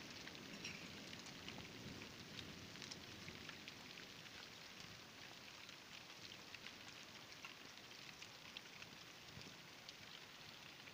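Light rain falling, faint and steady, with many small scattered drop ticks.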